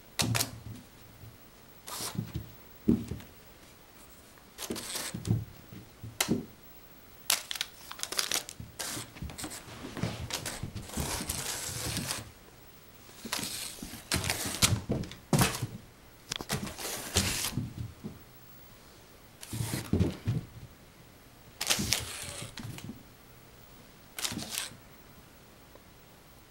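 Irregular scratchy rustles and soft thuds of a kitten pouncing and scrabbling on carpet after a feather wand toy that is swished and dragged along the floor, coming in short spurts with brief pauses between.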